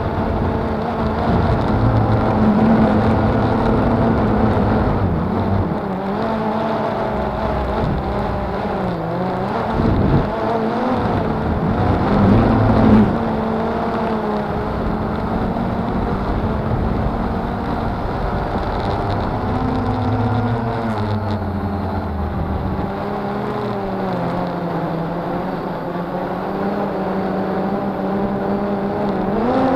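Cheerson CX-20 quadcopter's brushless motors and propellers whining in flight, heard through the camera mounted on the drone; the pitch of the whine rises and falls again and again as the throttle changes, over a low rumble of wind noise.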